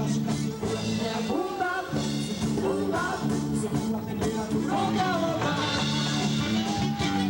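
A band playing music: held bass notes under a regular drum beat, with a gliding lead melody line above.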